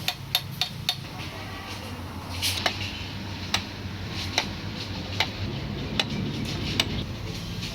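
Sharp ticking clicks, irregular at first and then evenly spaced a little under a second apart, over a steady low hum.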